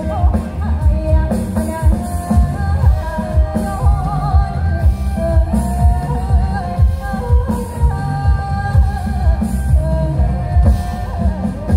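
Pop music with a singing voice and a heavy, pulsing bass beat, played loud through large sound-system speaker cabinets.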